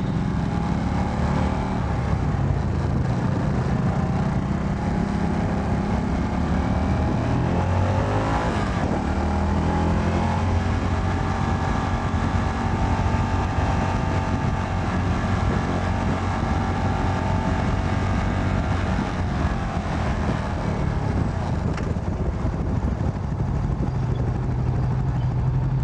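CFMoto 300NK single-cylinder motorcycle engine running at road speed with steady wind rush. Its pitch rises about eight seconds in as it accelerates, holds steady, then eases down around twenty seconds in.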